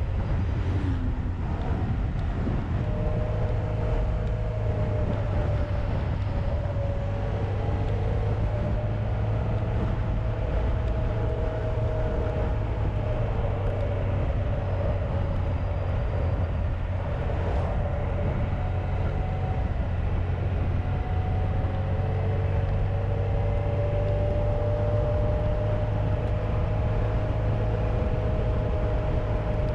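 Honda VFR1200X Crosstourer's V4 engine running at a steady riding speed, its note drifting gently up and down, with wind and road noise over it.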